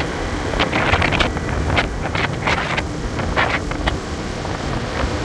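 Wind rushing over the microphone of a moving Honda scooter, with the engine and tyres running underneath. A run of short, sharp gusts or knocks comes through in the first four seconds.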